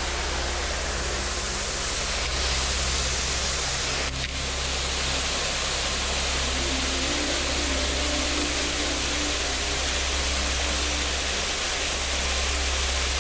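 Steady rushing noise with a low hum underneath, unchanging apart from a brief dip about four seconds in.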